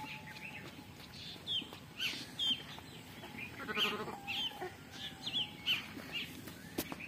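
Small birds chirping again and again, with one short goat bleat about four seconds in.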